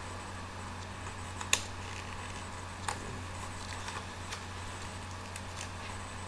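Headphone packaging being handled and opened: scattered light clicks and ticks, with a sharp click about a second and a half in and a smaller one near three seconds, over a steady low hum.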